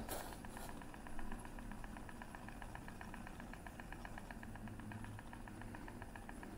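Electric hair clippers running with their housing open, the small motor driving the ceramic cutting blade left and right as it trims forearm hair: a faint, steady buzz with a fast, even rattle.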